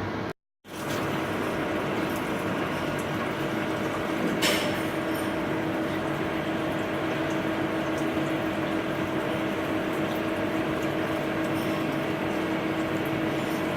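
Hardinge Conquest ST-20 CNC lathe running, with a steady mechanical hum and coolant splashing and flowing. The sound cuts out briefly just after the start, and a short sharp scrape of the cutting tool comes about four and a half seconds in.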